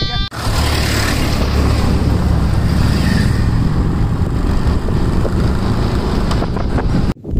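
Steady rumble and rush of air from riding in a moving road vehicle, heard from on board. It cuts off abruptly near the end.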